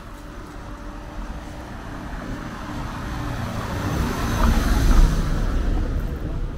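A vehicle passing by: its noise builds steadily for about five seconds to a peak, then drops away quickly.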